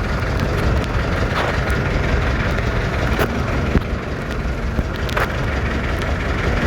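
Motorboat engine running with a steady low rumble.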